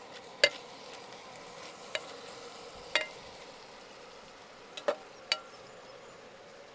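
Stir-fry sizzling in a pan while a utensil stirs it, knocking sharply against the pan about six times at uneven intervals.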